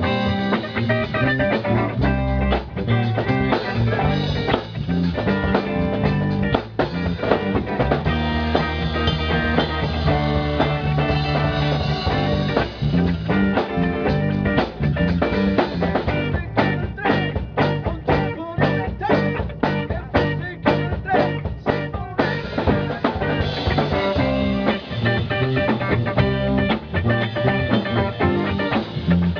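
Live band playing an upbeat blues-rock song with drum kit, electric guitar and bass. Partway through, the band hits a run of sharp accented stabs, about two a second, then carries on playing.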